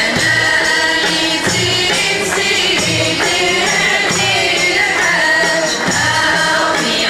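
A women's Sufi hadra chorus sings a devotional praise chant in unison, backed by a slow, low drum beat roughly every second and a half.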